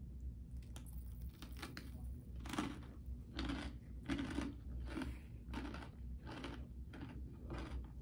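Crunchy chewing of a raw jalapeño stuffed with cream cheese and a Takis rolled tortilla chip: a few sharp crunches about a second in, then steady chewing a little faster than once a second.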